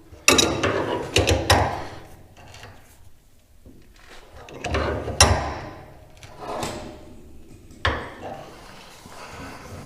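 Knocks and clatter of hydraulic hoses and their fittings being handled and fitted: a few sharp clunks about a second in, a louder one near five seconds, and another near eight seconds.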